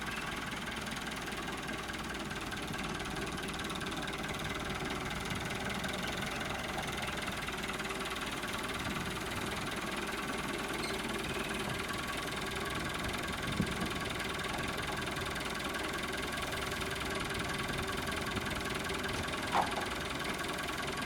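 A motor or engine running steadily, with a couple of brief knocks over it.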